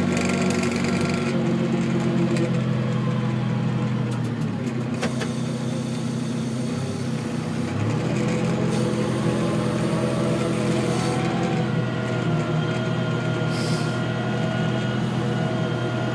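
Tractor engine running steadily, heard from inside the cab, its pitch sagging briefly twice as the loader is worked. A thin steady whine joins in over the second half.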